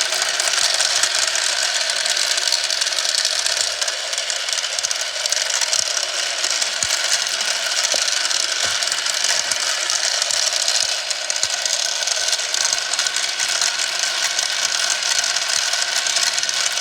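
Marbles rolling and clattering along a marble run, a steady dense rattle of small clicks with an occasional louder knock.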